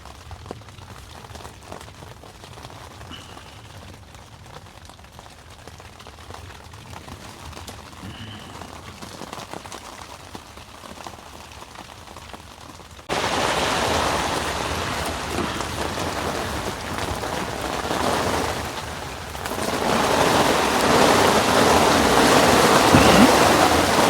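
Heavy rain drumming on the fabric of an inflatable tent, heard from inside. About halfway through it jumps suddenly to a much louder downpour and builds further near the end.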